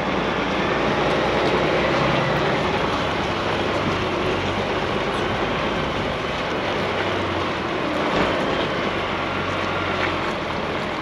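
DAF XF truck's diesel engine running steadily at low speed, with tyre and road noise, heard from outside the cab as the rig rolls slowly through a turn.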